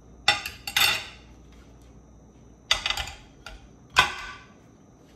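Metal knife and fork clinking and scraping on ceramic dinner plates in several sharp strokes, with a plate set onto another plate. The loudest clink comes near the end.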